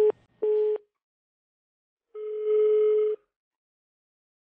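Telephone line tones: the last two short beeps of a fast repeating busy-type signal at the start, then about two seconds in a single longer tone lasting about a second. The call is not getting through.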